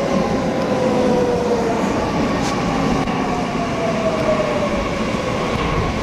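JR Central 315 series electric train pulling into the station and braking: a steady rumble of wheels on rail under a motor whine that falls slowly in pitch as the train slows.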